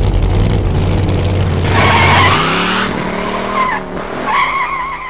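Car sound effect: an engine rumbling, then revving with tires squealing in a wavering screech from about two seconds in, trailing off near the end.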